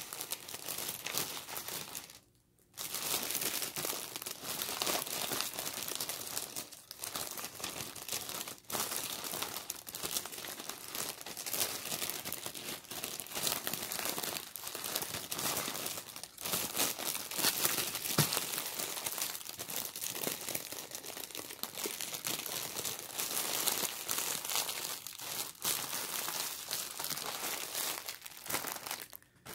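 Clear plastic packaging crinkling as diamond painting kits and small bags of drills are handled, with a brief pause about two seconds in.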